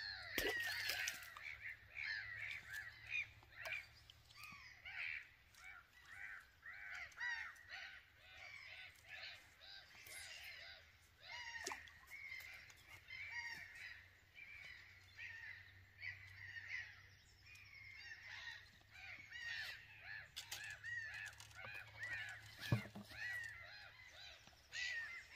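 A flock of birds calling over one another: a steady chorus of many short, harsh calls, with a sharp knock near the end.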